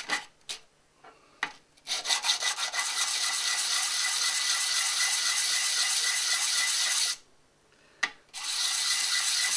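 Brass plumbing union rubbed in quick strokes on a sheet of wet-and-dry abrasive paper, cleaning its face for silver soldering. The rubbing stops twice, briefly near the start and again after about seven seconds, with a few light clicks in the pauses, then goes on.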